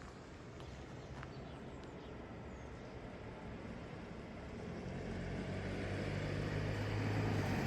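A motor vehicle approaching: a low engine hum and a hiss grow steadily louder over the second half.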